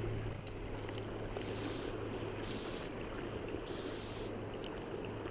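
Steady rush of a fast trout river flowing around the legs of a wading angler, with a short, high hiss repeating roughly once a second.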